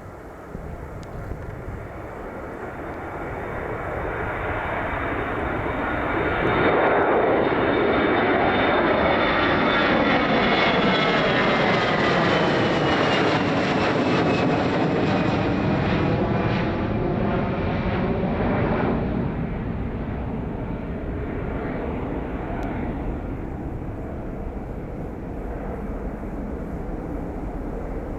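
Airliner flying past close by: the engine noise builds for several seconds, stays loud for about twelve seconds with a whine that slides down in pitch as the aircraft goes by, then fades away.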